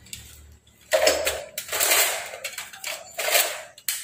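Plastic and metal welding accessories clattering and rattling as they are handled: a quiet start, then a run of irregular knocks and rattles from about a second in.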